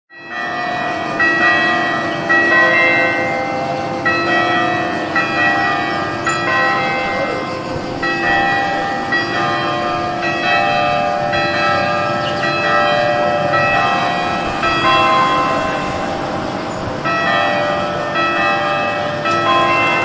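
Church bells ringing a peal: several bells of different pitch struck one after another, about one strike a second, their tones ringing on and overlapping.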